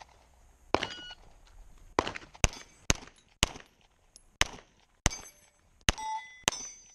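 Glock pistol fired in a rapid string of about nine shots at steel plates, with the plates ringing after hits.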